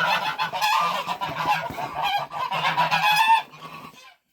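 Domestic waterfowl calling loudly and repeatedly, a run of strident calls that stops about three and a half seconds in.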